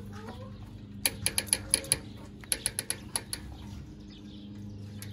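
Two quick runs of small metallic clicks, about eight and then six, as an Allen key works the screws of a spark arrestor into the tip of an RJWC Krossflow ATV exhaust.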